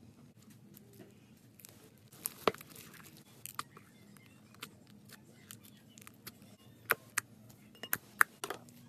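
Wet slime being stirred with a spatula and squeezed by hand in a glass bowl of borax water as it sets: scattered sharp wet clicks and pops over a faint hiss, the loudest a few seconds in and several more near the end.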